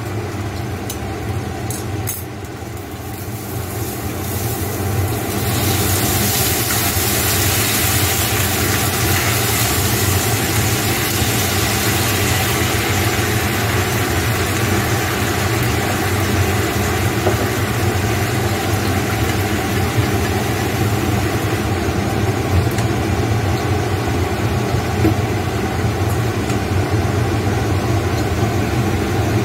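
Sauce of oyster sauce, soy sauce, sugar and water sizzling in a hot frying pan with pork and vegetables on a gas burner: a steady hiss that grows louder about five seconds in, over a continuous low hum.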